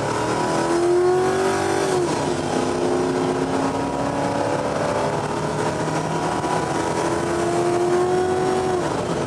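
A car engine revving hard. Its pitch climbs and then drops off about two seconds in, and climbs and drops again near the end.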